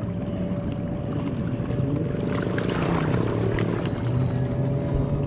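Steady drone of a boat engine running out on the lake.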